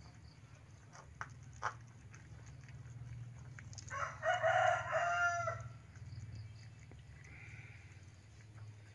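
A rooster crowing once, starting about four seconds in and lasting about a second and a half, over a steady low hum.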